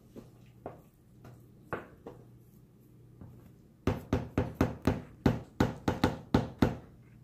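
Metal spoon knocking against a large plastic mixing bowl of thick dressing mix: a few soft clicks while stirring, then about a dozen quick, sharp knocks, about four a second, in the second half.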